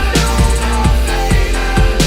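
Hip-hop backing music with a heavy kick drum, a bass line and a sustained melody.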